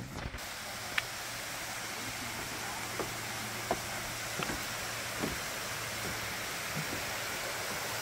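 Steady rush of falling water from a small waterfall, a thin cascade spilling down a rock face, with a few sharp clicks and knocks scattered through the first few seconds.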